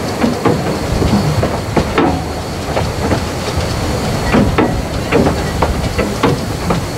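Narrow-gauge steam train running: a steady steam hiss with irregular knocks and clatter about twice a second.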